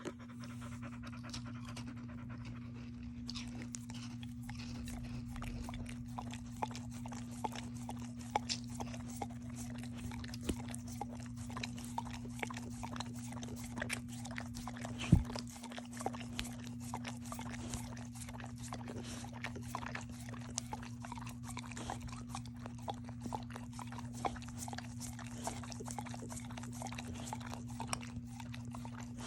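Dog eating a snack: many small irregular clicks of chewing and licking, with one sharp louder click about halfway through, over a steady low hum.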